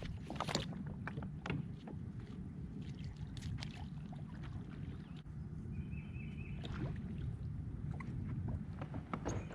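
Scattered knocks and clicks of gear being handled on a plastic kayak, over a steady low wind rumble on the microphone.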